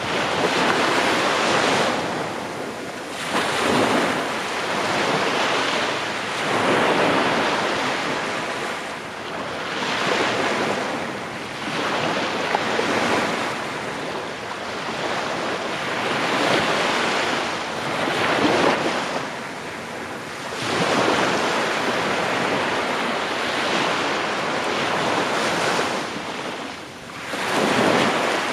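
Small waves breaking and washing up a sandy beach, the surf swelling and ebbing every two to four seconds.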